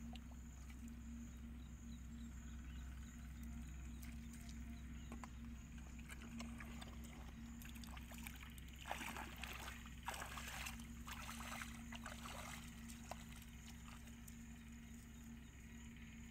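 Feet wading and sloshing through shallow muddy water, the splashes bunched together in the middle stretch, over a steady low hum.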